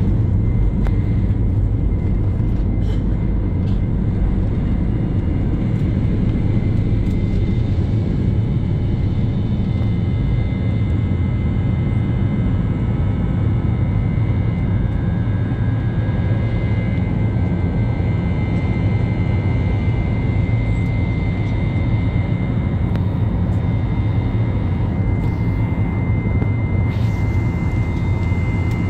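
Airliner's jet engines at takeoff power heard from inside the cabin, through the takeoff roll and the climb just after liftoff: a steady, loud, deep rumble with a thin high whine that grows stronger about halfway through.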